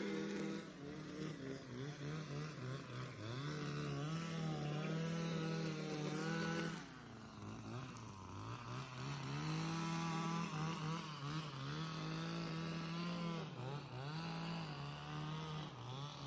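Small petrol engine running at high speed, its pitch rising and falling over and over as it is throttled up and down, with several short dips in speed.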